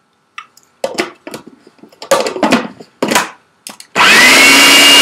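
Food processor motor switched on about four seconds in, its whine rising quickly and then holding a steady pitch as it blends a thick mix of avocado, cocoa powder and maple syrup. Before it, a few short knocks and clinks.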